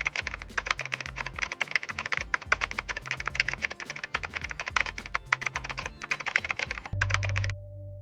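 A fast, uneven run of light clicks, several a second, much like typing on a keyboard, that stops about seven and a half seconds in. A low hum comes in just before the clicks end.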